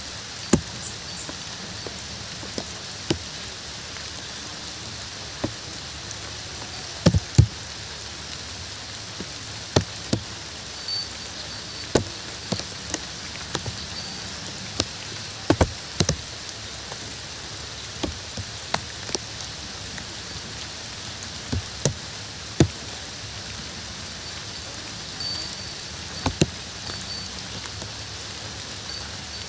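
Steady rain hiss with large drops landing close by at irregular intervals, each a sharp tap or knock, a few clustered together now and then.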